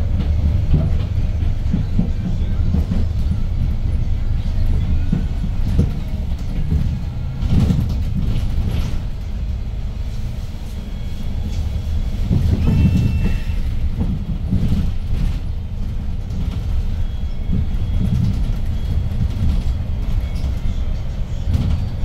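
A 2012 Hyundai New Super Aerocity city bus under way, heard from inside the cabin near the front: its C6AE CNG engine running with a low, steady rumble that swells and eases as the bus drives on, mixed with road noise.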